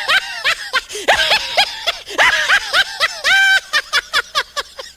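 A high-pitched, squeaky laugh sound effect: rapid rising-and-falling notes, several a second, edited in over the footage.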